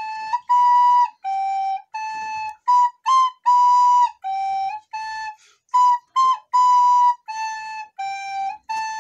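Soprano recorder playing a simple melody of separate held notes, moving between a few nearby pitches, with short breaks between the notes.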